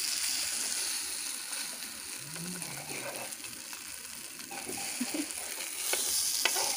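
Steady oil sizzle from egg-and-sausage toast squares frying in a nonstick pan, with a metal spoon scraping the pan as they are turned, and a few sharp clicks of the spoon against the pan near the end.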